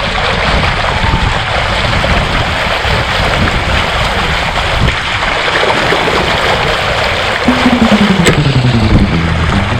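Wind and rushing water on a Hobie Cat 16 catamaran under sail, a steady loud noise, with a tone that slides downward about three-quarters of the way through.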